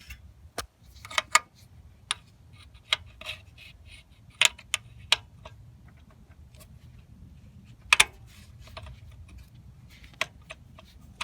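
Irregular sharp metallic clicks and clinks of hand tools and bolts against metal while a replacement neutral safety switch is fitted to the transmission, about a dozen spread out, the loudest around a second, four and a half and eight seconds in.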